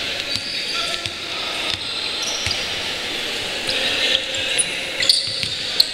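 Basketball game play on a hardwood gym court: a ball bouncing and sneakers squeaking, with a few sharp squeaks or knocks near the end.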